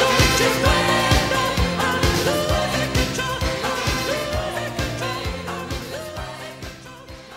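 Background music: a song with singing over a steady beat, fading out through the last few seconds.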